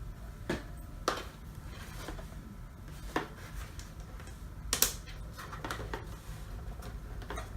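Scattered sharp plastic clicks and knocks, about half a dozen spread a second or more apart, the loudest about five seconds in, as batteries are fitted into a plastic skull decoration's battery compartment.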